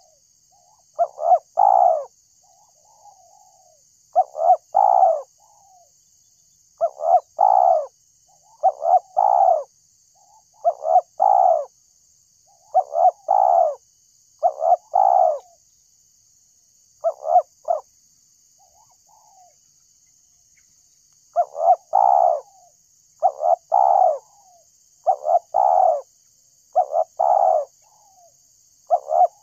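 Spotted dove (tekukur) cooing: short phrases of two or three coos, repeated about every two seconds with a pause of a few seconds past the middle, with softer coos between the phrases.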